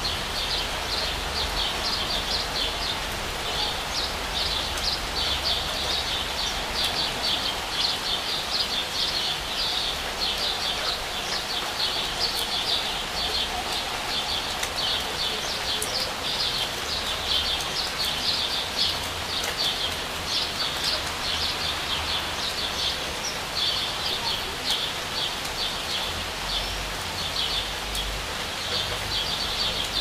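Steady rain falling, with a bird chirping over it in quick, repeated runs of high notes.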